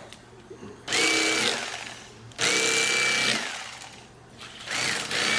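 Electric fillet knife switched on in three short runs, its motor whine rising as it spins up and dropping as it is let go, while it cuts crappie fillets.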